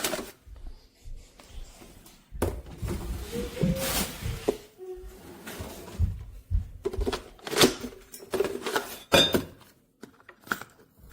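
Irregular knocks, clicks and rustling of objects being handled, with a few heavier thuds.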